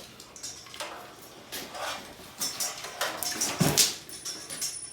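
Irregular metallic clattering, scraping and knocking as the garage door opener and its hardware are handled, with a duller, deeper knock about three and a half seconds in.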